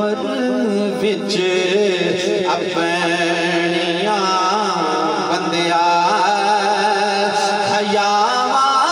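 A man singing a naat in long, wavering, ornamented held notes over a steady low drone.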